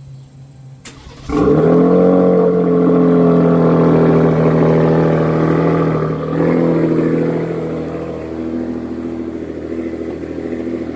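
Ram 1500 Rebel's 3.0 L Hurricane twin-turbo straight-six, fitted with an AWE 0FG cat-back exhaust, cold-starting about a second in: a sudden loud start-up flare, then a steady fast idle that settles slightly lower about six seconds in.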